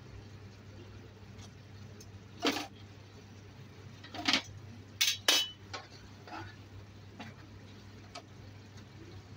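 Metal kitchen tongs clinking against the frying pan and tray: four sharp clanks between about two and a half and five and a half seconds in, with a few lighter ticks, over a steady low bubbling of pumpkin-dough twists in the pan.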